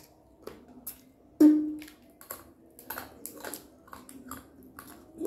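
Eating whole boiled crabs by hand: a run of short clicks and cracks from shells being broken and picked apart, with chewing. About a second and a half in comes a single louder knock with a brief ring.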